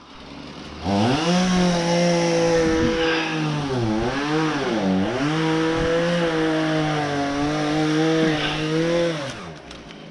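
Two-stroke chainsaw revved up to full throttle about a second in and held high, dipping in pitch twice midway, then released back to idle near the end.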